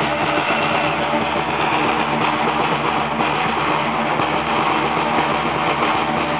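Live street music for the Romanian bears' dance: a drum band playing, with several steady held tones over a dense, noisy din.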